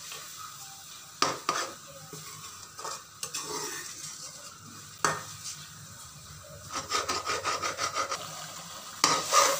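Metal ladle stirring and scraping chicken karahi in a metal karahi while the tomato masala fries down (bhuna) over a gas flame, with a faint sizzle underneath. There are scattered clinks of metal on metal, a quick run of scraping strokes about two-thirds of the way through, and a louder scrape near the end.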